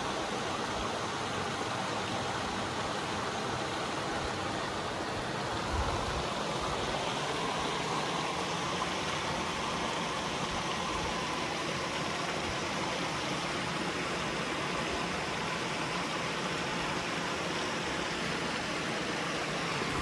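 Steady rush of flowing river water over rocks, an even hiss at a constant level.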